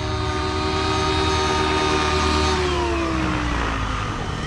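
OS 55 AG two-stroke glow engine and rotors of a nitro RC helicopter, running through a tuned pipe at a steady high speed, then falling in pitch from about two and a half seconds in as the throttle comes down and the helicopter sets down.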